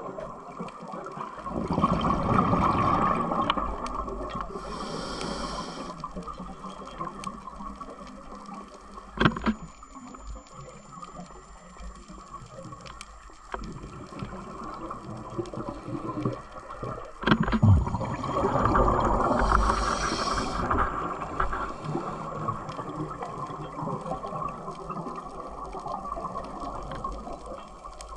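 Scuba diver's breathing through a regulator, heard underwater. A long rush and gurgle of exhaled bubbles and a short hiss of the regulator come twice, about fifteen seconds apart, with a couple of sharp clicks in between.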